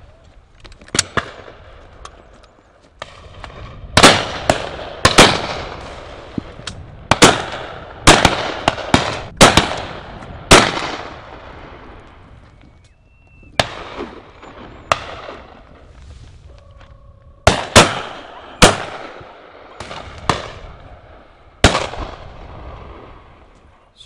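Shotguns firing at high driven pheasants: many shots at irregular intervals, some loud and close and others fainter, each followed by a rolling echo, with a lull of a few seconds near the middle.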